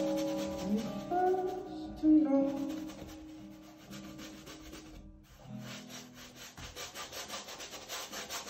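The last guitar notes of a song ring out and fade over the first couple of seconds. Then a paintbrush scrubs paint onto stretched canvas in quick, even rubbing strokes, about four a second, through the last three seconds.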